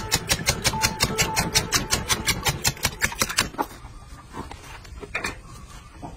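Wire whisk beating eggs in a stainless steel bowl: rapid, even clinking of wire against metal, about six strokes a second, stopping about three and a half seconds in. After that it is quieter, with a few soft knocks.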